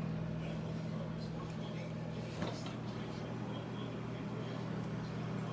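Steady hum of a running kitchen cooking appliance, with one sharp click about two and a half seconds in.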